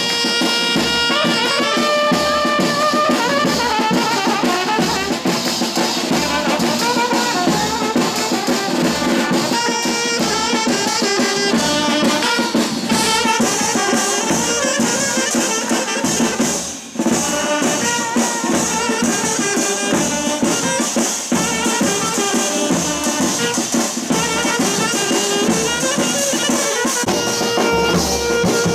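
Live street brass band playing: trumpets, a tuba-type horn and saxophone over a steady bass drum and cymbal beat. The music dips for a moment about two-thirds of the way through.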